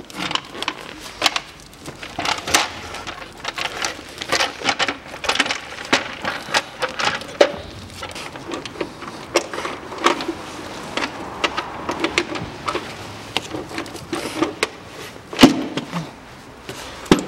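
Timing belt cover being positioned over the engine front and its bolts started by hand: irregular clicks, taps and scrapes of the cover and bolts against the engine, with the loudest knock about fifteen seconds in.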